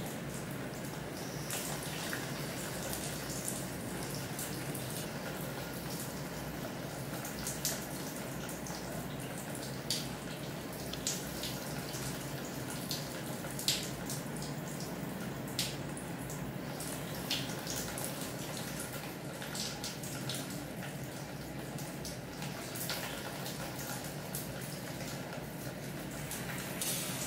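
Water running steadily in a small tiled bathroom, with single drops splashing sharply every second or two.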